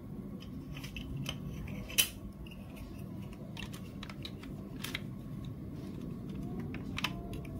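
Plastic marble-run bricks and track pieces clicking and knocking as they are pressed together by hand, a scatter of small sharp clicks with the loudest about two seconds in, over a steady low hum.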